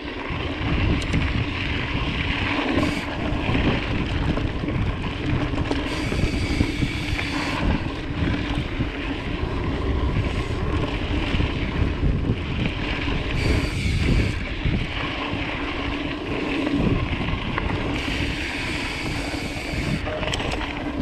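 Mountain bike rolling along a gravel forest track: steady wind buffeting on the microphone over the rumble of the tyres on the gravel.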